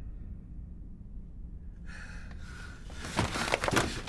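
Low room hum, then a man gasping and struggling, with a run of sharp knocks and rattles from about three seconds in.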